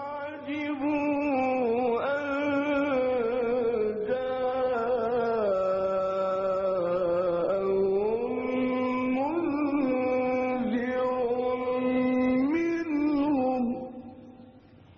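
A man's voice reciting the Quran in a melodic, drawn-out style: one long held phrase with ornamented turns in pitch. It dips lower in the middle, climbs again, and fades out near the end.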